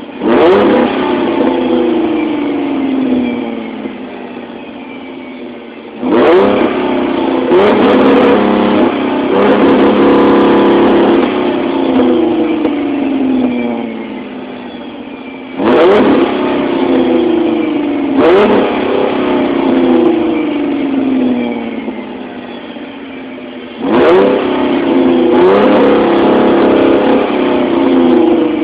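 2006 Chrysler 300's 3.5-litre V6 breathing through a Dynomax Super Turbo dual cat-back exhaust, revved repeatedly while parked: each rev climbs sharply, some are held high for a few seconds, and the engine falls back slowly to idle between them.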